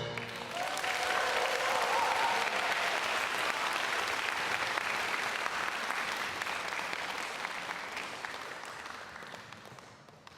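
Concert audience applauding just after the music ends, the clapping fading away over the last few seconds.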